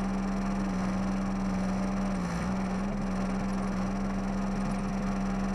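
Cub Cadet lawn tractor engine running at a steady speed, a constant engine hum that dips briefly in pitch about two seconds in.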